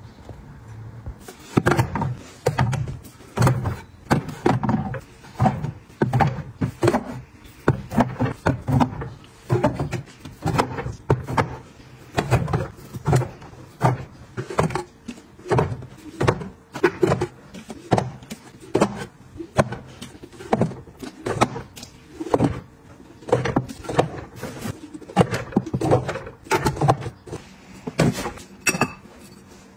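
Bottled drinks, mostly plastic water bottles, being set down one after another on pull-out cabinet shelf trays: a steady series of knocks and taps, roughly one or two a second.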